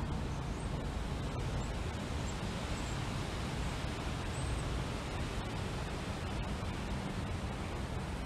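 Steady wind, with a low rumble of wind on the microphone under an even hiss. A few faint, high, distant bird chirps come through in the first half.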